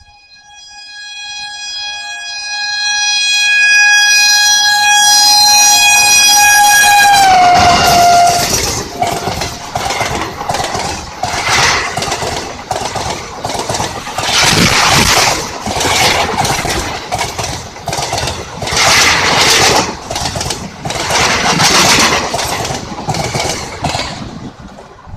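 WAP-4 electric locomotive's horn in one long steady blast that grows louder, then drops in pitch about seven seconds in as the locomotive passes and cuts off. The passenger coaches follow, clattering over the rail joints with a rush of noise that swells every couple of seconds and fades near the end.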